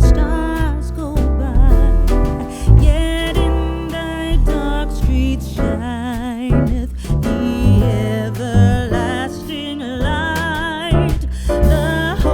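Background music: a song with a singing voice, guitar and a steady beat.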